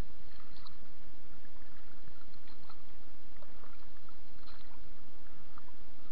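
Steady rushing noise of water around an inflatable boat, with faint small clicks and splashes scattered through it.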